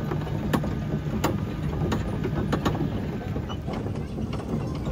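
A kiddy train ride's engine running steadily, with irregular sharp clacks and knocks over it, more frequent in the first few seconds.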